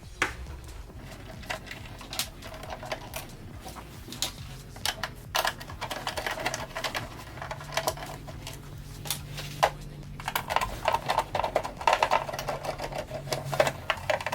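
Screws being backed out of a coffee machine's plastic top cover with a screwdriver: runs of quick clicks and ticks, with a whirring stretch in the second half.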